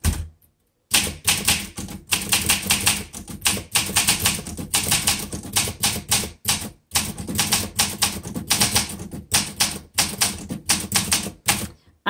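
1963 Olympia SM7 manual typewriter being typed on: a rapid, continuous run of keystrokes, the type bars clacking against the platen, starting about a second in with a brief pause about halfway.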